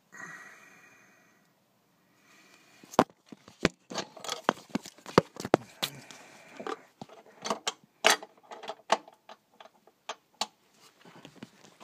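Metal parts and hand tools clinking and knocking in a run of sharp, irregular clicks as the clutch release fork is worked back onto the release bearing. It opens with a brief ringing sound that fades over about a second and a half.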